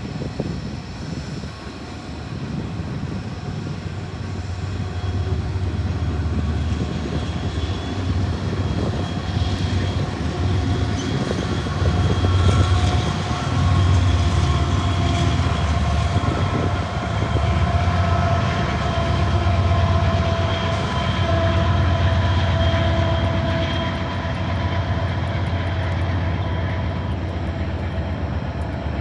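Union Pacific coal train passing: its diesel locomotives rumble by, followed by the steady rolling of the coal hopper cars. The sound builds and is loudest about halfway through as the locomotives go past.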